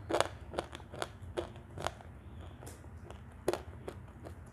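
Dry Turkistan clay being bitten and crunched in the mouth: a series of short, sharp cracks about every half second, the loudest about three and a half seconds in.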